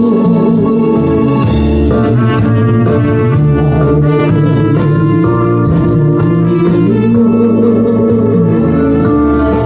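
Instrumental music: slow, held organ-like chords over a bass line that changes every second or so.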